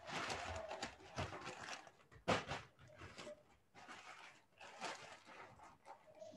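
Irregular bursts of rustling, crackly noise on a call microphone, with one sharper, louder crackle about two seconds in.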